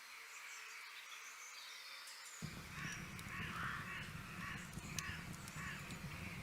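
Birds calling: faint high chirps at first, then a series of repeated harsh calls from about two and a half seconds in. A low rumble comes in at the same moment.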